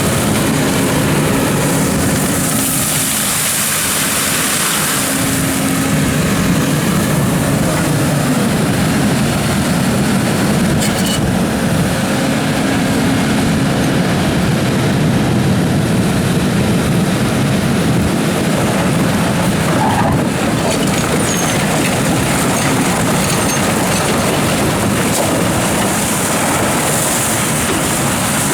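Doosan DX300 crawler excavator's diesel engine running steadily under load while digging gravel, its pitch holding with small shifts as the hydraulics work. A couple of short knocks stand out, one about eleven seconds in and one about twenty.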